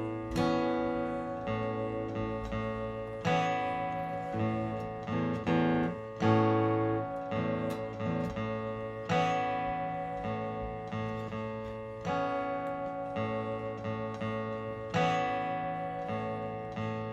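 Acoustic-electric guitar (Martin GPCPA4) playing an instrumental passage through a looper pedal: layered plucked and strummed chords repeating in a steady pattern, with a fresh accent every second or so.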